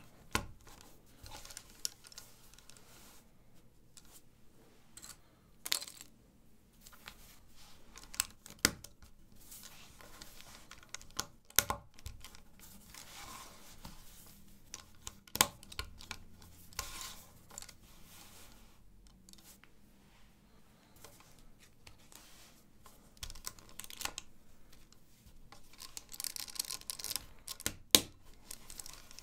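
LEGO 1×4 plates being handled and pressed together by hand: irregular sharp clicks and snaps with light rustling in between, a few snaps much louder than the rest.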